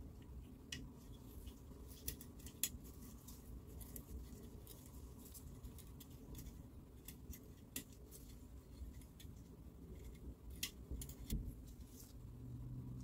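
Faint, scattered light clicks and small metallic taps of tools and parts being handled. A low steady hum comes in near the end.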